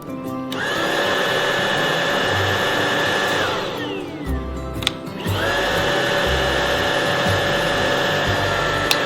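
Tineco cordless stick vacuum's motor switched on, running with a steady high whine, then spinning down with a falling pitch after about three seconds; switched on again about five seconds in and spinning down once more near the end.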